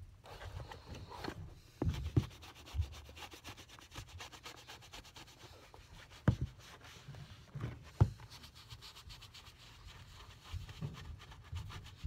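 A sponge rubbing leather conditioner into a leather shoe upper in rapid, continuous strokes, with a few sharp knocks, the two loudest a little past the middle and about two-thirds through.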